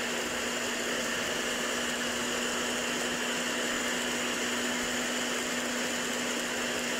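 Electric hand mixer running steadily at very low speed, its twin beaters working flour into a liquid batter, with a constant motor hum.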